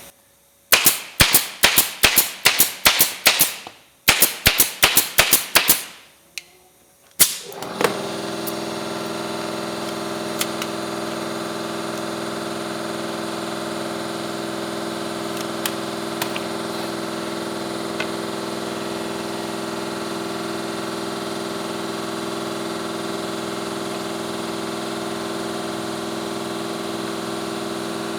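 Rapid nailing: two quick runs of sharp bangs, about three a second, then one more bang. A steady workshop motor then starts and runs with an even hum of several tones.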